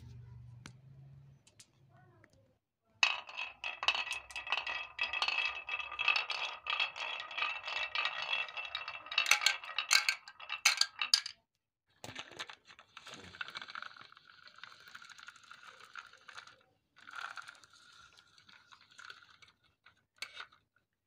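Glass marbles rolling and rattling down a wooden wavy slope track, clicking against the curves, with sharp clacks near the end as they drop into a plastic toy loader bucket. After a short pause a second, quieter run of rolling and clicking follows.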